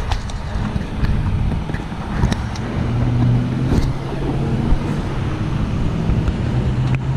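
A vehicle engine idling with a steady low hum, with scattered light clicks of footsteps on asphalt.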